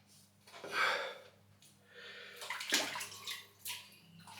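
Wet swishing of a 24 mm synthetic shaving brush working soap lather on the face: a short burst about a second in, then a longer run of strokes.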